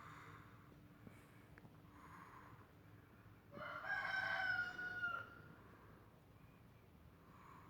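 Soft, regular snoring breaths about every two to three seconds. A rooster crows once in the middle, a single pitched call of about a second and a half and the loudest sound.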